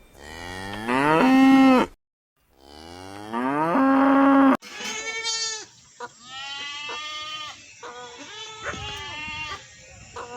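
Cow mooing twice, each long call rising in pitch and then holding, both cut off abruptly. These are followed by a run of shorter, higher bleating calls that fall in pitch.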